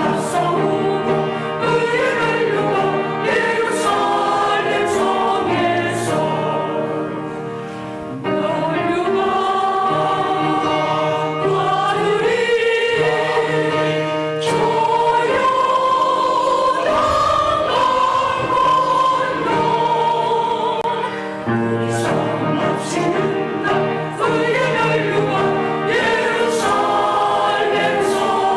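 Church choir singing a sacred anthem, holding sustained chords throughout.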